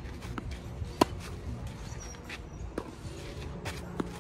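Tennis balls hit back and forth in a baseline rally: sharp racquet strikes and ball bounces, the loudest crack about a second in and another strike near the end.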